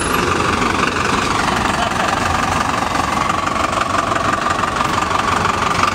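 Engine of a JAC refrigerated light truck running steadily as the truck drives past and turns in.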